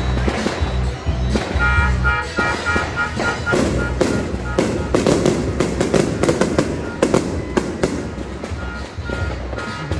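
Fireworks and firecrackers going off in rapid, irregular bangs over loud music with a heavy bass beat. A fast run of high beeps cuts in about two seconds in and again near the end.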